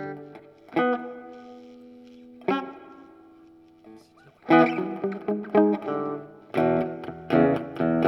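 Electric guitar played through a Bugera V5 tube amp in 1-watt mode, on a clean tone with reverb. Two chords are struck and left to ring, then busier strummed chords start about halfway through.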